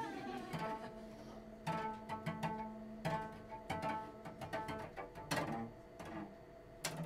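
Cello played pizzicato: short plucked notes in an uneven rhythm over a steady held note.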